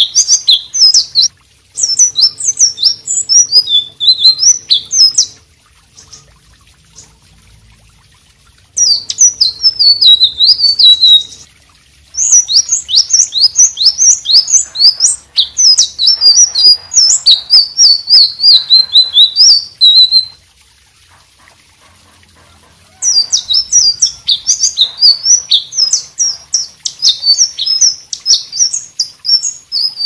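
Selendang biru, a caged blue flycatcher, singing in full voice: long runs of fast, high, twittering and whistled notes. The song breaks off twice for a few seconds, about a fifth of the way in and again about two-thirds in.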